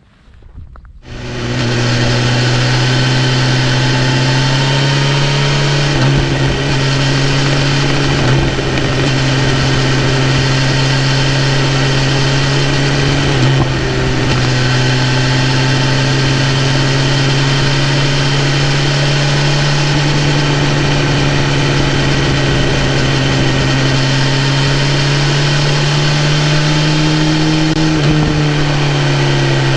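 BMW S1000RR's inline-four engine comes in abruptly about a second in and runs at a steady, even pitch, rising slightly near the end.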